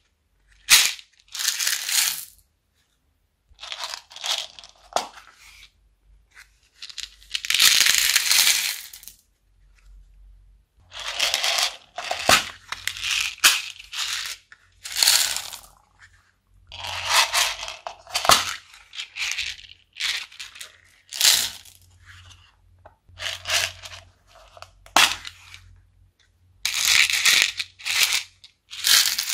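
Small plastic beads and acrylic gems rattling inside hinged plastic cases as they are shaken, in bursts of a second or two, with a few sharp clicks from the plastic cases.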